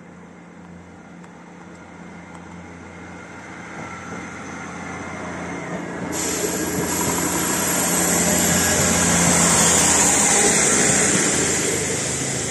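South Western Railway two-car diesel multiple unit approaching and running past on the near track without stopping. The engine and the wheels on the rails grow steadily louder, peak about two-thirds of the way in, then begin to fade as it goes away.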